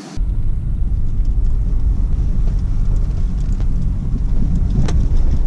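Car driving along a rough dirt field track, heard from inside the cabin: a loud, steady low rumble of engine and tyres that starts abruptly a moment in, with an occasional light knock or rattle.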